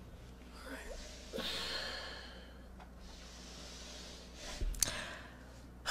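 A person's long breath out, like a sigh, followed by a faint click near the end.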